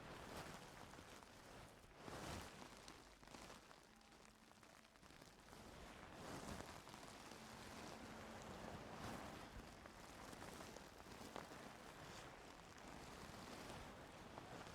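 Faint, soft scratching and rustling of ear-cleaning tools working close to the ear, swelling a little louder a few times.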